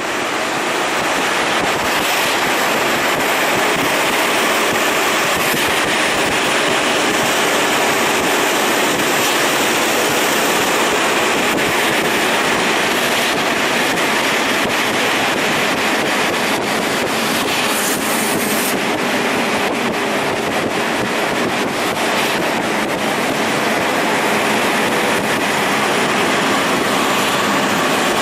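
Steady rushing noise of a moving train heard from inside the carriage, its wheels running on the rails. A brief louder hiss comes about two-thirds of the way in.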